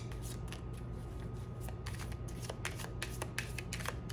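A deck of oracle cards being shuffled by hand: a quick, irregular run of soft card clicks and slaps.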